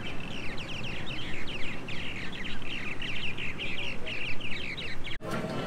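A colony of purple martins chattering at their gourd nest houses: a dense, continuous stream of short, high chirps and gurgles from many birds. It cuts off abruptly about five seconds in, giving way to background music and crowd noise.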